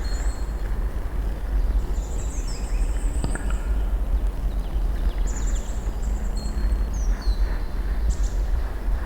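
Birds chirping outdoors, a scatter of short high calls and quick gliding notes, over a steady low rumble.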